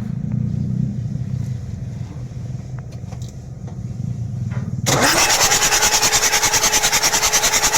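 Mitsubishi 6M61 diesel engine rumbling low and fading, then about five seconds in a starter cranks it loudly with a rapid, even pulsing and a steady whine. The engine is being checked for hard starting and low power while its injectors are tested one by one.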